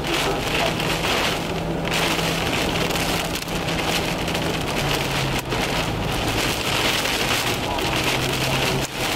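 Heavy rain pelting the car's roof and windshield during a severe thunderstorm, a dense steady drumming, under the car's low hum, which drops in pitch about five seconds in and rises again near the end.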